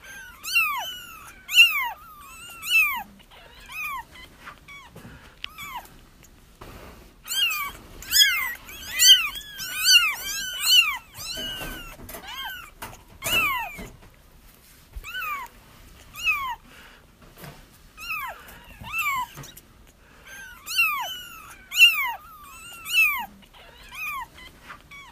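Several young kittens crying, a stream of short, high meows that rise and fall in pitch. They come in bouts, often overlapping, with brief lulls between. These are the cries that can draw a feral mother cat back to her litter.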